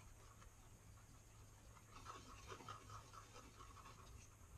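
Faint scratching and scraping of a wooden stick stirring two-part metal epoxy on a plastic lid, busiest in the second half, over a steady low hum.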